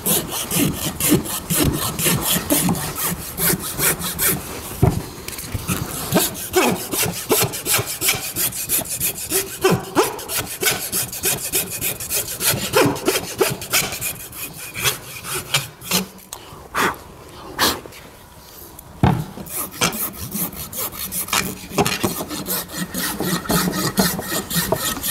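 Farrier's rasp scraping a horse's hoof wall in rapid repeated strokes, roughening and grooving the wall so glue can anchor into it, with a brief pause about two-thirds of the way through.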